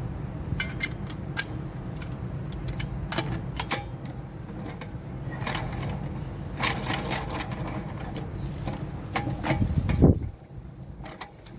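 Wheel lug nuts being run onto the studs with a wrench: irregular metallic clicks and clinks, with a heavier knock about ten seconds in, over a steady low hum.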